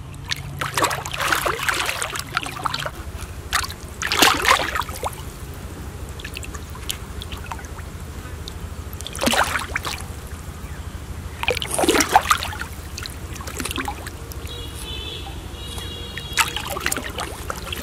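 A large hooked fish thrashing at the surface of shallow pond water: short splashes about five times, with quieter trickling and lapping water between them.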